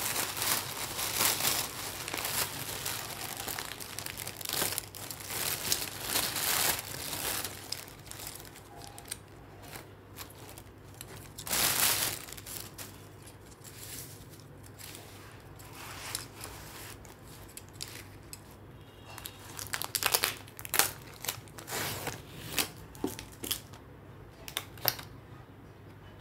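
Thin plastic carry bag rustling and crinkling as hands pull a takeaway box out of it, dense for the first several seconds with a loud burst near the middle. Near the end, scattered sharp crinkles and clicks as the foil takeaway tray's clear lid is handled.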